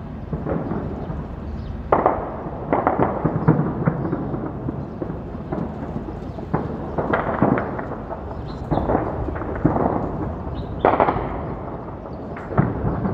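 Distant gunfire in repeated bursts: clusters of sharp cracks every second or two, some louder than others, with echoes trailing after them over a constant low rumble.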